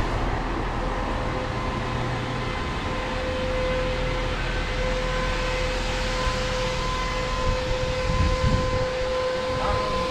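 Large motorhome engine idling with a low rumble, under a steady high-pitched whine that sets in about a second in and holds. A few low thumps come near the end.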